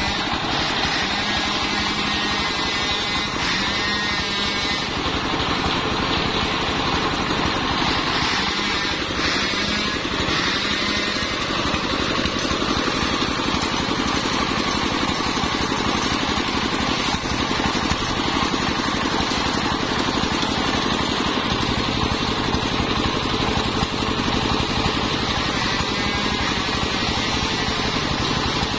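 Stationary single-cylinder diesel engine running steadily, belt-driving a large 85 cm circular saw blade. In the first few seconds the blade is cutting through a sengon log.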